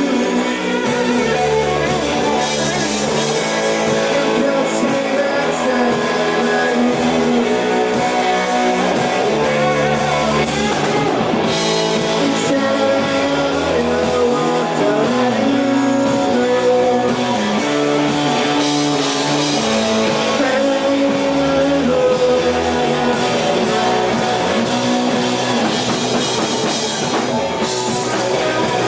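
Rock band playing live: guitars and a drum kit with singing.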